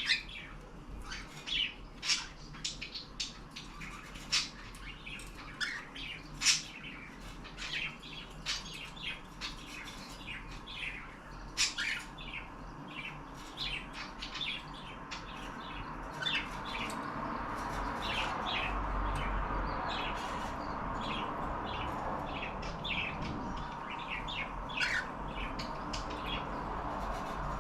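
Cockatiels chirping and squawking over and over in short, sharp calls, the loudest in the first half. About halfway through, a steady rushing noise rises beneath them.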